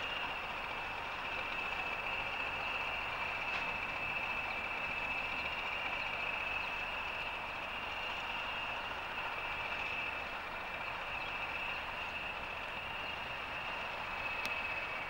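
Pair of Class 20 diesel-electric locomotives running slowly. Their English Electric eight-cylinder turbocharged engines give a steady drone with a steady high-pitched whistle over it.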